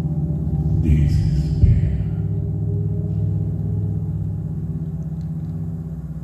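A low, sustained drone of layered steady tones in the performance's music, slowly fading. About a second in there is a brief rustle and a soft knock.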